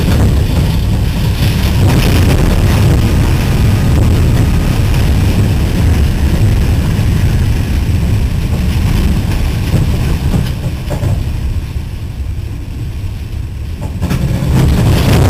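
Loud, dense low rumble of a freight train mixed with storm wind buffeting the microphone, as cars ahead are blown off the track in a tornado. It eases for a few seconds about eleven seconds in and swells again near the end.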